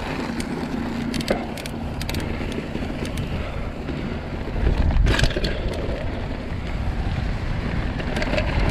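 Mountain bike descending a dirt trail: wind buffeting the microphone over tyre rumble, with scattered sharp clicks and rattles from the bike and a louder burst of noise about five seconds in.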